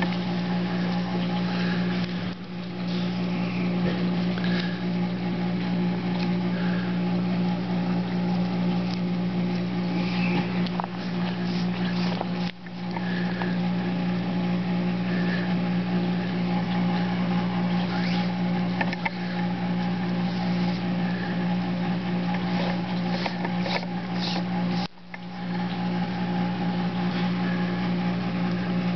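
A steady low hum with several even overtones that holds one pitch, dropping out briefly three times.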